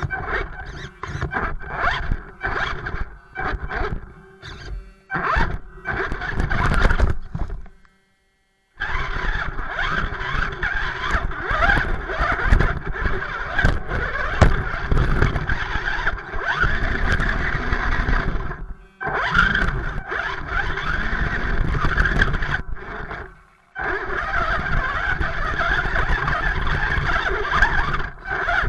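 Electric motor and gear drive of a BSD BT1001 RC crawler whining under throttle. For the first several seconds it comes in short on-off blips, then in longer runs with a few brief stops.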